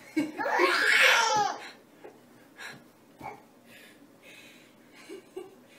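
A baby's long, high-pitched squeal of laughter a moment in, lasting over a second, followed by a few short, faint baby sounds.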